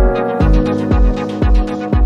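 Background electronic music with a steady beat: a low kick drum about twice a second under sustained chords.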